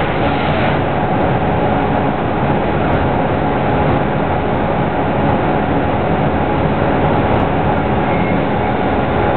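Hardinge GX2505AX vertical machining center running: a loud, steady mechanical noise with a constant tone held through it.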